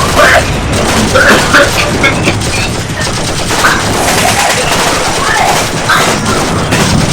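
Sustained, dense gunfire of a battle, volleys of rapid shots running together.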